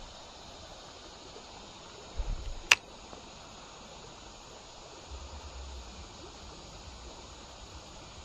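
Creek water running steadily, with a short low rumble and then a single sharp click about two and a half seconds in.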